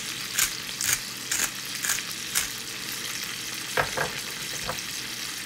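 Potatoes, onions and bell peppers sizzling steadily in a hot frying pan. For the first couple of seconds a seasoning shaker is shaken over the pan in short strokes about twice a second, and a few sharper knocks come near the end.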